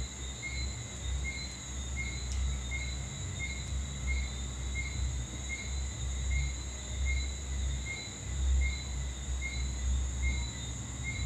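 Insects chirping: a steady high-pitched trill with a chirp pulsing about twice a second, over a low rumble that rises and falls.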